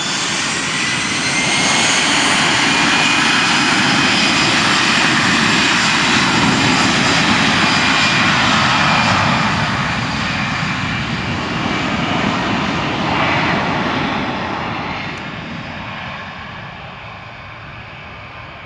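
Jet airliner's engines roaring past with a faint whine that slowly drops in pitch, building up at the start and fading away over the last few seconds.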